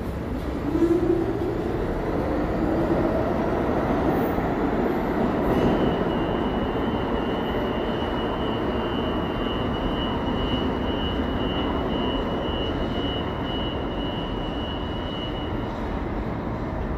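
New York City subway train running through the station with a steady rumble of wheels on rail; a rising tone climbs over the first few seconds, and from about six seconds in a high steady tone pulses for about ten seconds.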